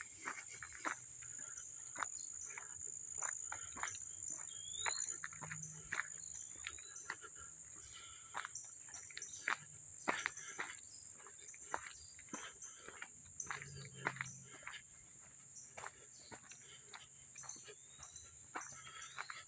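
Steady high-pitched insect drone across the woods, with irregular crunches and clicks of footsteps on a rocky trail and a few short rising bird chirps.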